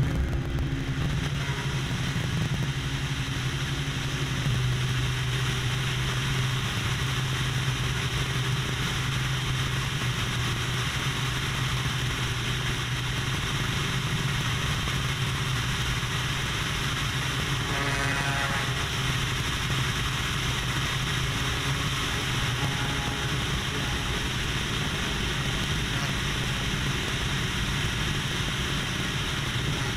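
Aerobatic propeller plane's piston engine running steadily, a constant drone with propeller and air rush, heard from a camera mounted on the aircraft. A short higher-pitched sound cuts in about eighteen seconds in.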